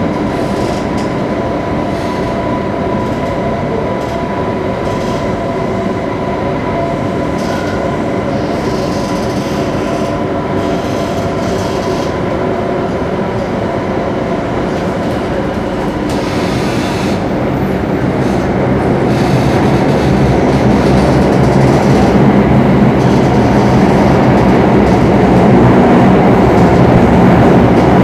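Singapore MRT Circle Line train running through a tunnel, heard inside the carriage: a steady rumble with thin whining tones, growing louder about two-thirds of the way through.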